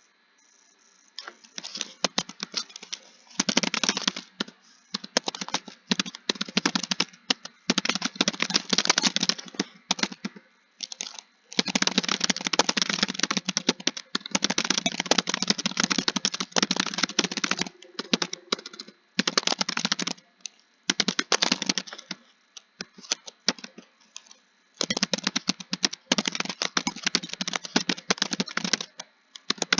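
Computer keyboard typing: fast runs of keystrokes lasting a second or a few seconds, broken by short pauses, starting about a second in.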